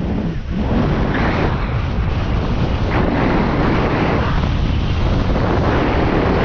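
Wind buffeting the microphone: a loud, steady rush of wind noise with heavy low rumble, as when moving at speed in the open air.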